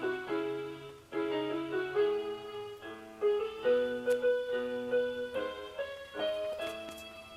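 Background piano music: a slow melody over held chords, with a brief break about a second in.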